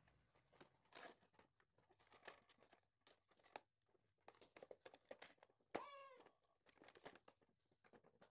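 Faint clicks and knocks of the plastic casing and metal inner pot of a rice cooker being handled and fitted back together. A sharper knock comes a little before six seconds in, followed straight away by a short pitched cry.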